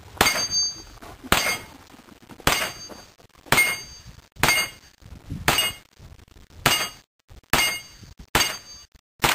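Ten gunshots from a carbine, fired one at a time at a steady pace of about one a second, emptying the magazine.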